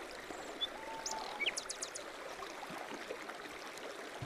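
A steady rush of flowing water, like a forest stream, with a few quick, high bird chirps about a second in.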